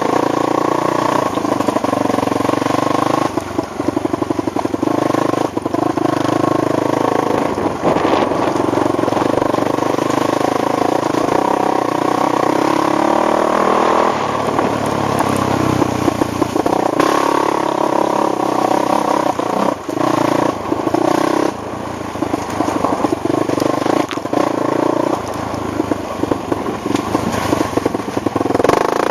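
ATV engine running with the throttle rising and falling, mixed with frequent knocks and rattles.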